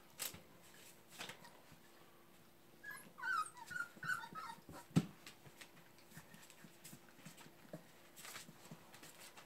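Young Labrador Retriever puppies whimpering in play: a run of short, high squeaks about three to four and a half seconds in, with scattered soft knocks and rustles as they scramble over bedding and newspaper.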